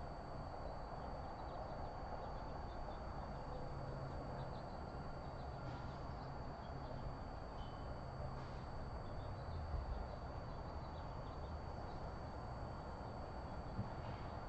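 Steady outdoor background hiss and low hum with a constant faint high-pitched whine, broken by a few faint ticks.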